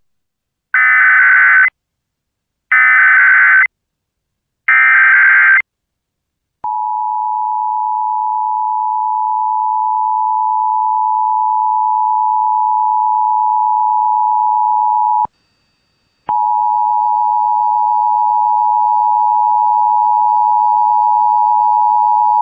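Emergency Alert System test signal: three one-second bursts of SAME header data, a digital warble about a second apart, which encode the coming Required Monthly Test. Then comes the steady two-tone attention signal (853 and 960 Hz together), held for about eight and a half seconds before it cuts off. After a second's gap a second attention tone begins and runs on.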